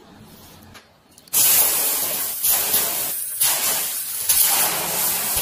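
Freshly poured metal casting in a sand mould hissing loudly with steam. The hiss starts suddenly about a second in and runs on with brief dips.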